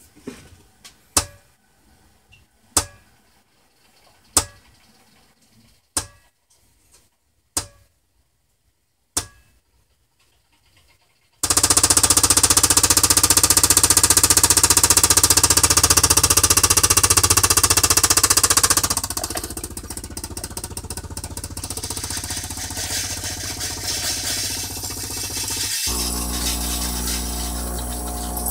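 Bosch Tassimo pod coffee machine: a sharp click about every one and a half seconds, then after a short pause its water pump starts with a loud steady buzzing hiss as it begins brewing, dropping to a lower level a few seconds later.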